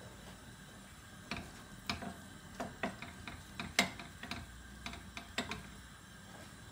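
Wooden spoon stirring chopped onions in a non-stick frying pan: a dozen or so irregular knocks and scrapes of the spoon against the pan, starting about a second and a half in and stopping about a second before the end.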